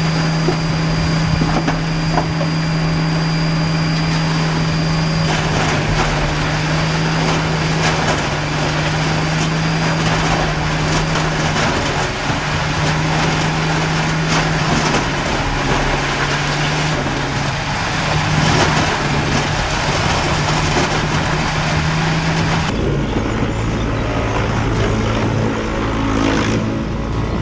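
Large tracked horizontal grinder running under load, its engine holding a steady drone under a dense din of wood being ground as a loader bucket dumps split logs and brush into its hopper. About 23 seconds in the sound changes abruptly to a different machine with a lower engine hum, logs lying on a chain infeed conveyor.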